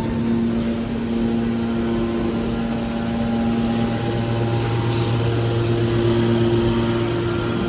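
Hydraulic scrap metal baler running: a steady machine drone with several held hum tones, changing slightly partway through.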